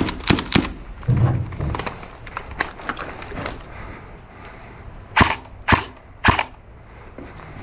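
Airsoft rifle firing single shots: three sharp cracks about half a second apart just past the middle, with a few quicker, fainter clicks right at the start.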